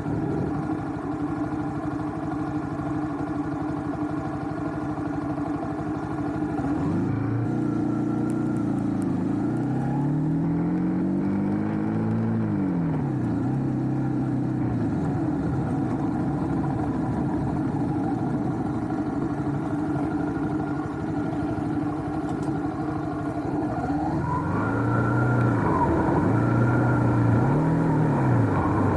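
Motorcycle engine running steadily. Its pitch rises and falls in a run of revs about a third of the way in and again near the end.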